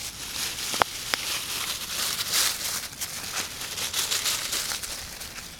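Dry fallen leaves rustling and crackling as puppies run and tumble through them, with two short clicks about a second in.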